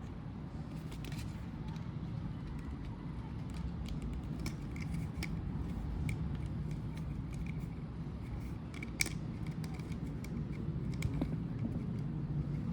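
A portable washing machine's packaging being handled and opened by hand: scattered small clicks and scrapes over a steady low hum, with one sharper click about nine seconds in.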